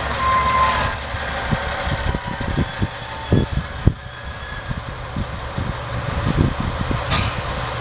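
Diesel railcar arriving at a station, its brakes giving a steady high-pitched squeal that cuts off with a sharp clunk about four seconds in. Low thuds and rumble from the slow-rolling train follow.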